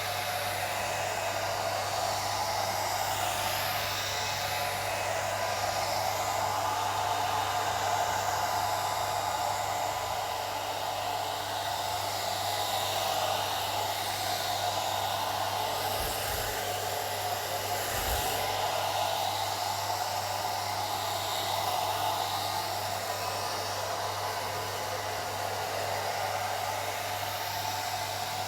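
Old electric hair dryer running continuously: a steady rushing blow of air over a constant motor hum.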